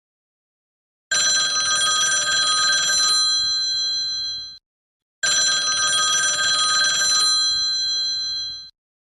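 Old telephone bell ringing: two long rings of about three and a half seconds each, separated by a short gap, each fading away at its end.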